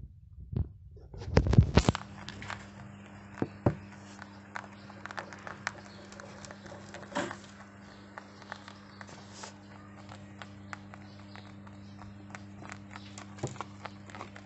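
Rabbits chewing dry dog kibble: an irregular run of small crisp crunches and clicks over a steady low hum. A loud low rumble comes about one to two seconds in.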